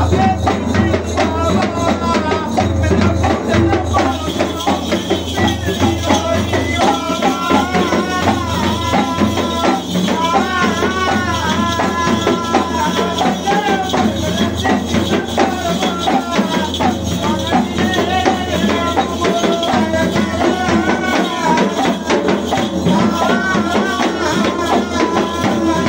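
Live ritual music: a double-headed barrel drum played in a fast steady rhythm with jingling percussion, under a voice singing a chant that rises and falls.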